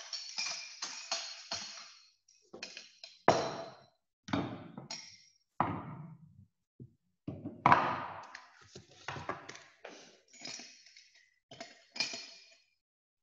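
Glass test tubes and other lab glassware being handled and set down: a string of about a dozen clinks and knocks at irregular intervals, several ringing briefly.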